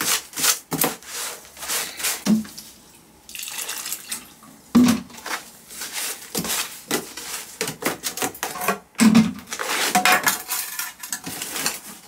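A hand scoop scraping and digging through damp potting soil and wool pellets in a plastic tub, mixing a soil-block batch: irregular scrapes and rustles with a few dull knocks against the tub.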